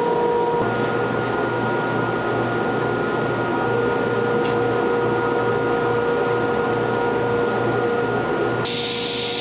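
Steady mechanical hum of a fan or blower running, with a few constant tones in it. The sound turns hissier near the end.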